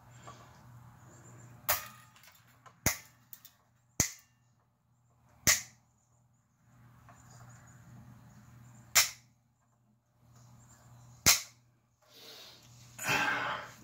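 Steel strings of a Harley Benton SC-450 electric guitar being snipped with cutters while still under tension: six sharp snaps spread over about ten seconds, one per string.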